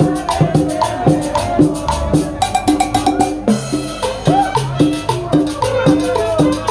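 Upbeat Latin dance music with drums and hand percussion keeping a steady beat under a melody.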